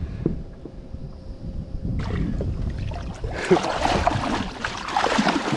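Low wind rumble, then from about two seconds in, water splashing and sloshing irregularly as a tarpon is held in the water beside a person wading.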